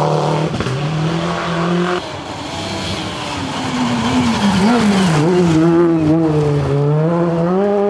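Rally car engines at high revs on a gravel stage. About two seconds in the sound cuts to another car approaching and passing close, its engine pitch rising and falling repeatedly as it accelerates and lifts.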